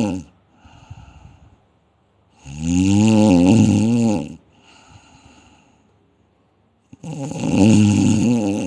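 Loud snoring: long pitched snores of about two seconds each, every one followed by a softer breath out. One snore is fading at the very start, a full one comes about two and a half seconds in, and another begins about seven seconds in.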